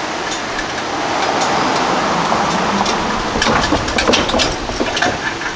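Pickup truck driving over the railroad crossing. It grows louder as it approaches, then its tyres clatter over the rails in a quick run of knocks.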